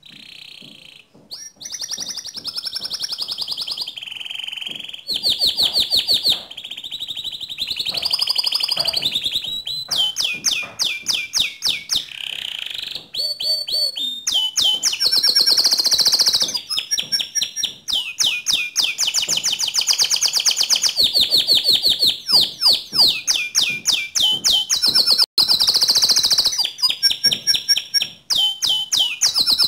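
A white domestic canary singing continuously: long high-pitched phrases of fast trills and rapidly repeated notes, with only brief pauses between phrases.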